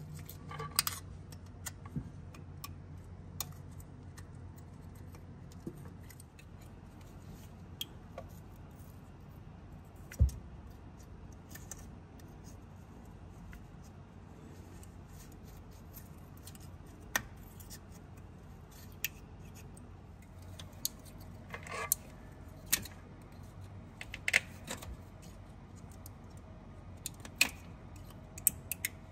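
Scattered light metallic clinks and taps of hand tools and metal parts being handled, over a steady low hum. One heavier, deeper thump comes about ten seconds in.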